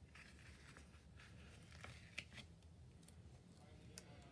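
Near silence with faint paper rustling and a few soft ticks as stickers are handled and pressed onto a paper planner page.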